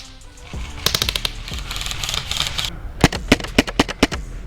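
Airsoft gun firing a rapid full-auto burst lasting about two seconds, followed by a handful of separate single shots.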